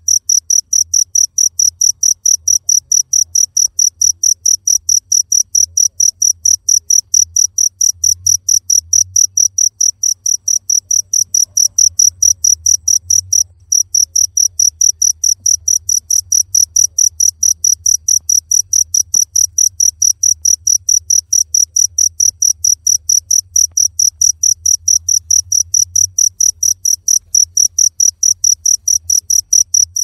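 Cricket chirping in a fast, even, unbroken train of high-pitched chirps, several a second, with one brief pause about halfway through.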